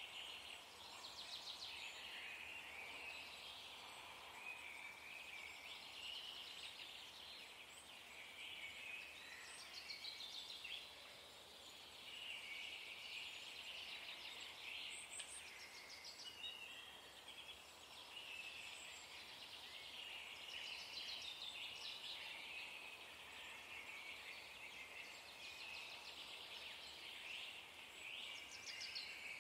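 Faint chatter of small birds: many short high calls and quick trills overlapping, coming and going at a steady low level over a soft background hiss.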